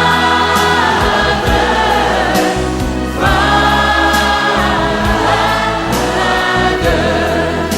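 Choir singing a Christian worship song with instrumental backing: two long held sung phrases over steady bass notes and a regular beat.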